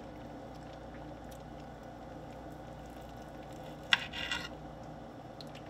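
A knife slicing through a raw fish fillet on a glass cutting board, over a steady low room hum. About four seconds in, the blade clicks sharply against the glass and gives a short scrape.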